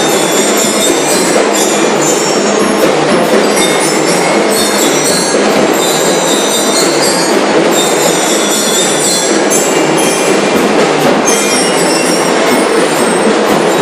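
School drum and lyre corps playing loudly: metal bell lyres ringing over snare and bass drums.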